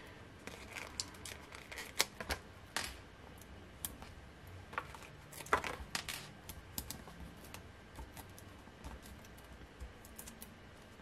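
Faint, irregular clicks and paper rustles from fingernails picking at and peeling small adhesive foam dimensionals off their backing sheet.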